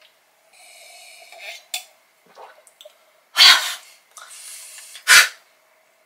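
A woman sipping beer, then two loud, short, breathy exhalations about a second and a half apart: the satisfied "haa" after a drink. A faint steady hum runs underneath.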